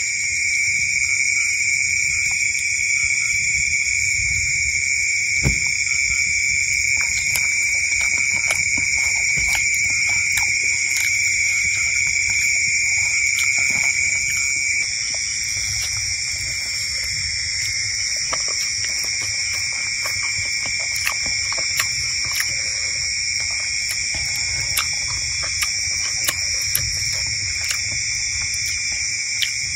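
Steady, shrill chorus of night insects holding high, unbroken tones, with scattered faint clicks and taps.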